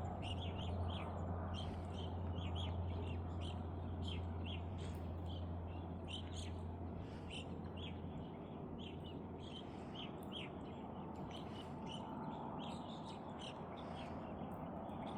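Small songbirds chirping, many short repeated chirps, over a steady low rumble that fades out about halfway through.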